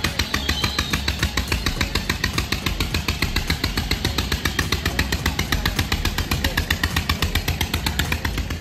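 An engine running steadily with a rapid, even chugging, about nine beats a second.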